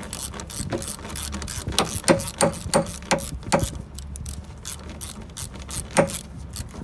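3/8-inch ratchet driving a 10 mm socket on a 3-inch extension to back out an already-loosened wheel cylinder bolt. Its pawl clicks rapidly on the back-swings, with louder strokes about three a second in the middle and one more near the end.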